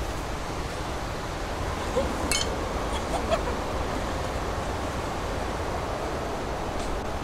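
Steady rushing noise, with a few faint ticks and a brief chirp about two to three seconds in.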